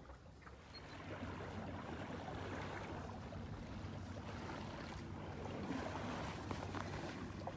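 Steady wash of water and wind around a J/24 sailboat under way under sail, growing louder about a second in.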